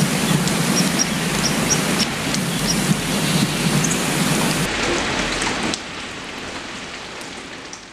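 Steady rain falling on a lake's surface, an even hiss of drops with faint scattered ticks. About six seconds in it drops in level and begins to fade out.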